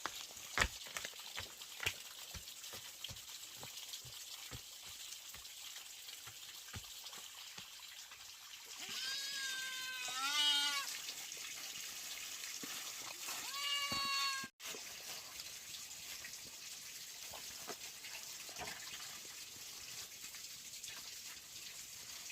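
A few sharp clicks in the first couple of seconds, then an animal calling twice: a long wavering call about nine seconds in and a shorter one a few seconds later.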